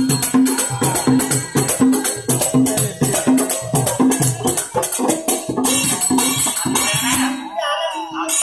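Folk percussion: a rope-laced, double-headed barrel drum beats a steady rhythm of about three strokes a second, with small hand cymbals jingling over it. A voice begins singing near the end.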